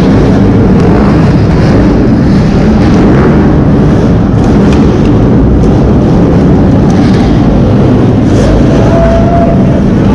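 Several dirt bike engines revving and running, loud and continuous.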